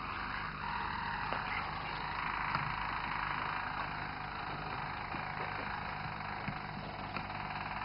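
Roller canary singing a long, steady low rolling song, a continuous fast trill, with a faint steady hum beneath.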